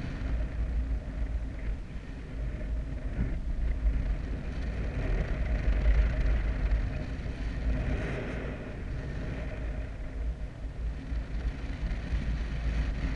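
Wind rushing over the microphone of a paraglider pilot's camera in flight: a low, buffeting rumble that grows louder around the middle and eases off a couple of seconds later.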